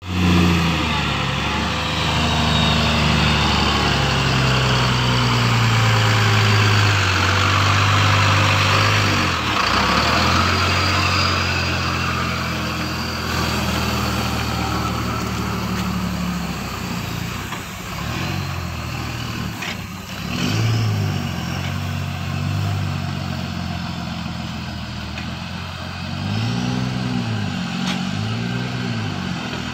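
BharatBenz 3723R heavy truck's diesel engine running at idle, a steady low hum. In the last few seconds the engine note rises and falls several times as the truck drives off.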